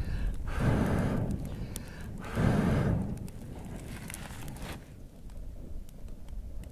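A person blowing hard into the opening of a stone firebox to fan the fire: two long rushing breaths of air about two seconds apart. After them it is quieter, with faint crackling.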